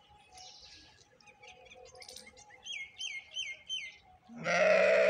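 Small birds chirping, including four quick falling chirps in a row about three seconds in. A little past four seconds a loud, long livestock call starts, the loudest sound here.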